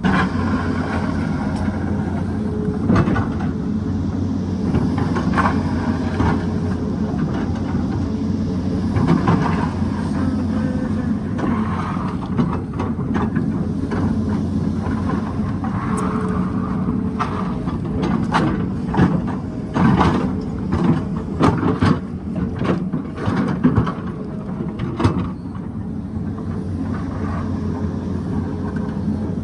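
Excavator's diesel engine running steadily, with repeated clanks and knocks of the bucket scraping and striking rock, thickest in the second half.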